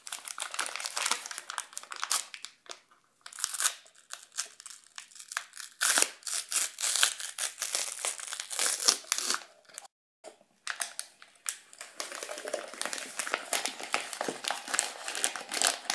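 Crinkling and rustling of an instant chocolate pudding mix packet being torn open and handled, in irregular bursts with a brief pause about ten seconds in.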